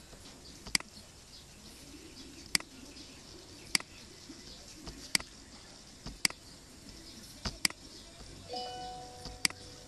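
Computer mouse clicking: about seven sharp single clicks, irregularly spaced a second or so apart, over faint background noise. A brief steady tone sounds near the end.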